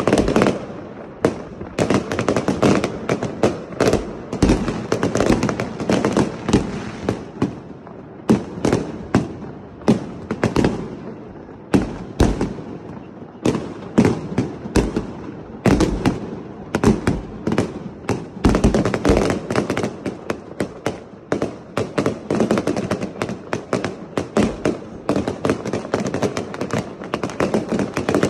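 Aerial fireworks going off in a rapid, continuous barrage: sharp bangs several a second, with a few deeper booms among them.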